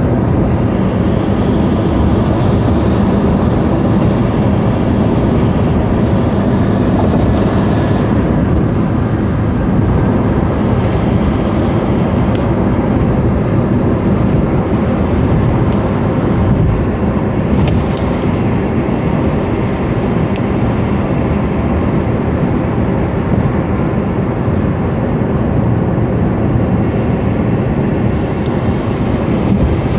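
Steady road noise inside a moving taxi's cabin: tyres on the expressway surface and the engine running, with a few faint clicks.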